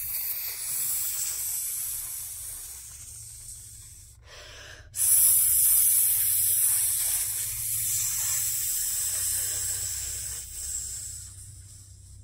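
A woman hissing long and hard through clenched teeth, in two long hisses. The first fades away over about four seconds. After a brief catch of breath, a louder one starts abruptly about five seconds in and dies away near the end.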